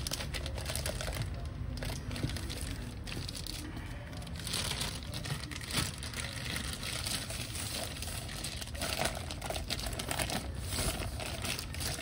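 Plastic bag and wrapping crinkling and rustling as a motorcycle exhaust canister is handled and pulled out of it, with irregular crackles throughout.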